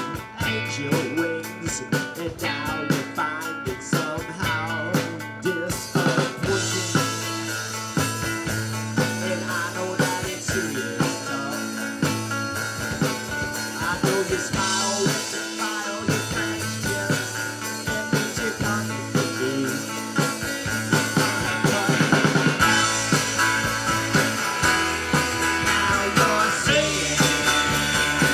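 Live rock band playing: electric guitars and a drum kit. It opens on a sparse ticking beat, the full band comes in about six seconds in, and it gets louder toward the end.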